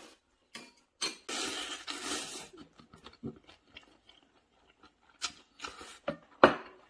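A person slurping noodles and chewing. A long slurp comes about a second in, and is the loudest sound, followed by chewing with short, sharp wet mouth clicks.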